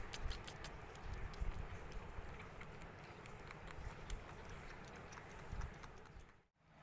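Kitten lapping milk from a plate: a run of quick, irregular wet clicks, thickest in the first second and sparser after, dropping out briefly near the end.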